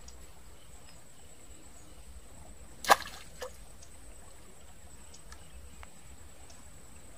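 A single sharp, loud hit about three seconds in, with a much fainter one half a second later, over a quiet outdoor background with a faint steady high hiss.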